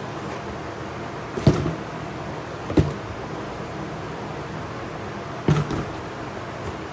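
Three sharp knocks, one about a second and a half in, one near three seconds and one about five and a half seconds in, the last followed by a brief rattle, over a steady background hiss.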